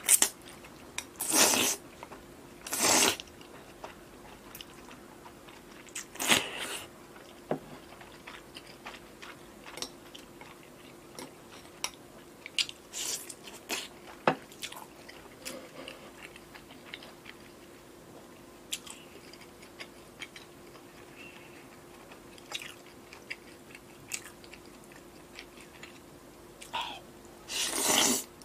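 Close-up mouth sounds of eating wide buckwheat liangpi noodle sheets: a few loud slurps in the first seven seconds and another near the end, with wet chewing and small mouth clicks between.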